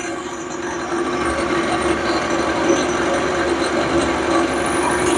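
Boring machine running, its cutter boring the small-end bushing of an S44 engine connecting rod: a steady mechanical whirr with a constant hum, a high hiss joining near the end.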